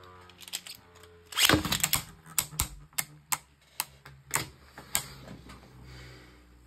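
Beyblade Burst spinning tops battling in a plastic stadium. A loud scraping rattle comes about one and a half seconds in, then a run of sharp, irregular plastic clacks as the tops strike each other and the stadium wall.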